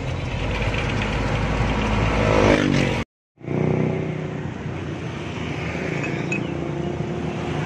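Dump truck engine running, heard from inside the cab on the move, with a brief rise in pitch just before it cuts out about three seconds in. After the cut a steady mechanical hum carries on.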